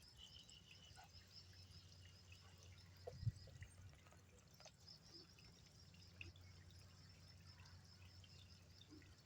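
Near silence: faint steady background noise with a soft thump about three seconds in.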